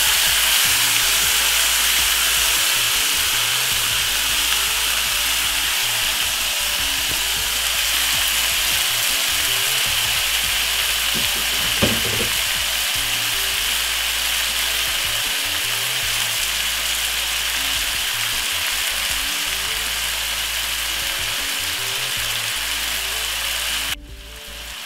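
Marinated chicken pieces sizzling steadily in a hot pot with garlic and onion, a dense frying hiss. There is one brief knock about halfway, and the sizzle drops sharply near the end.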